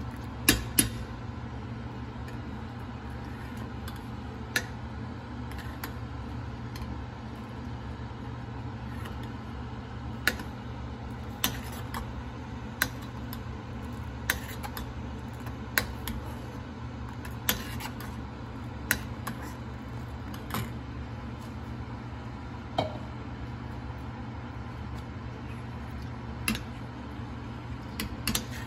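A metal spoon or whisk clinking against the side of a pot of milk while stirring: sharp single clinks every one to few seconds over a steady low hum.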